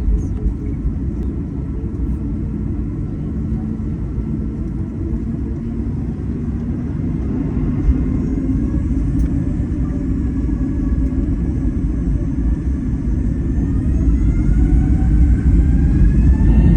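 Boeing 737 jet engines with a steady low rumble. From about two-thirds of the way through, several whines rise in pitch together as the engines spool up.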